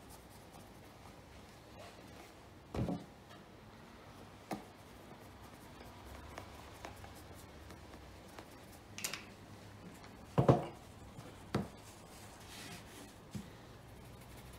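Quiet handling of a leather shoe: fingers rubbing the upper, with a few soft knocks and clicks as the shoe and a tin of shoe wax are moved about on a cloth-covered table. The loudest knocks come a little over ten seconds in.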